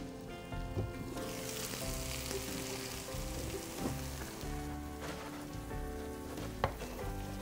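Shredded potato and eggs sizzling in a frying pan, the sizzle swelling about a second in, under background music. A single sharp knock near the end.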